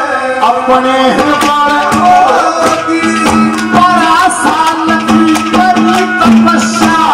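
Male folk singer singing a Haryanvi ragni into a microphone, with long held, wavering notes, accompanied by a hand drum and a steady sustained instrument.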